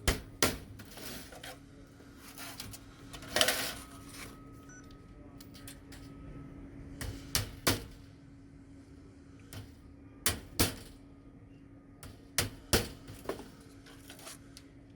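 Irregular sharp taps and knocks of hand tools on wood, coming singly and in quick twos and threes, over a faint steady hum.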